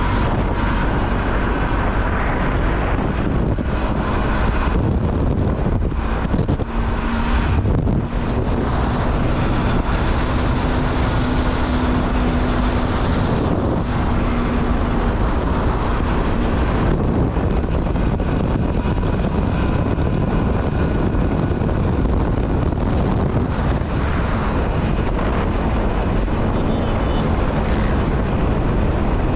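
Steady, loud noise of a moving vehicle on the road, with wind rushing over the microphone. A steady low hum runs through the first half and fades out.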